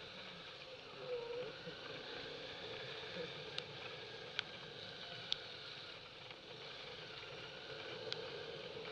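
Motorcycle running steadily at low speed along a lane, with road and wind noise and a few sharp clicks.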